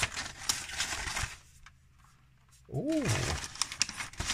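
Wrapping paper rustling and crinkling as it is pulled off a metal pencil tin, with small clicks from handling the tin. It stops briefly, a short hummed 'mm' rises and falls about three seconds in, then the rustling resumes.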